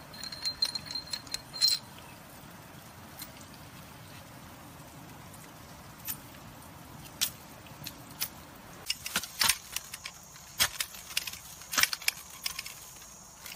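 Metallic clicks and clinks in the first two seconds as the knife is drawn out of the folding shovel's handle, then sharp strikes of the knife blade chopping bamboo stems, coming faster after about nine seconds. Near the end, a steel shovel head digging into soil.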